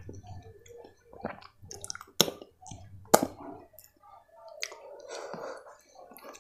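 Fingers squishing and mixing soft khichdi into kadhi, heard close, together with chewing. Two sharp wet smacks stand out, about two and three seconds in.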